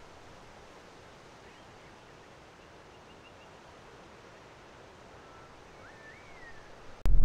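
Faint, steady bush ambience with distant bird calls: a few short high chirps about three seconds in and a whistled note that rises and falls near the end. Just before the end, a sudden sharp click followed by a loud low rumble.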